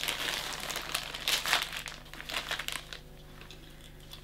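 Thin clear plastic bag crinkling and rustling as a small doll body is pulled out of it. The rustling dies away about three seconds in.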